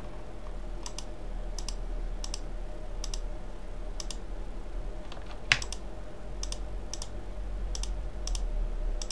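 Computer mouse buttons and keyboard keys clicking: about a dozen short, sharp clicks spaced roughly half a second to a second apart, one louder about five and a half seconds in, over a steady low hum.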